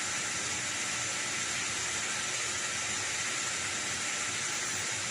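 Steady static hiss, even and unchanging throughout.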